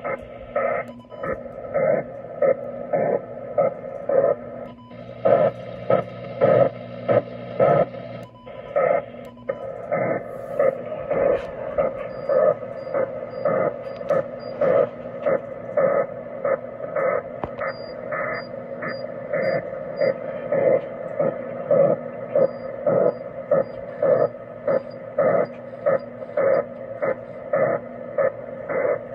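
Digital shortwave signal on 9316.00 kHz, received on a Kenwood TS-850S HF transceiver and heard through its speaker as a weird digital blowing noise. It comes as even, rhythmic whooshing pulses, about two a second, over a steady band of tone.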